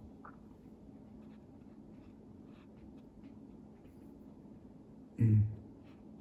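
Watercolour brush working on paper: faint, soft scratchy strokes, with one brief low thump about five seconds in.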